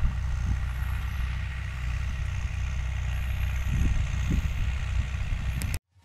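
John Deere 2850 tractor's diesel engine running steadily under load while pulling an offset disc harrow through the field; the sound cuts off suddenly near the end.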